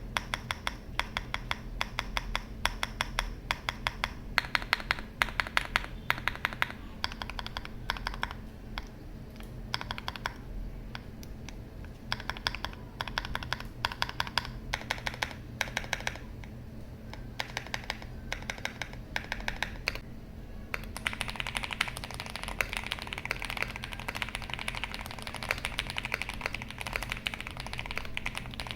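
Typing on a foam-filled Owlab Mr Suit mechanical keyboard with Owlab Neon switches on a POM plate and MW02 PBT keycaps: a steady run of keystrokes. Near the end the typing turns faster and denser. The uploader notes that a few keys clack because their keycaps sit loose on the stems.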